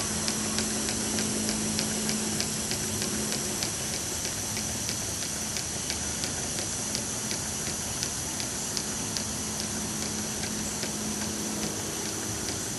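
Double-acting slide-valve model mill engine running slowly on compressed air as the supply pressure runs down. There is a steady hiss of air, with regular clicks at about three a second from its strokes.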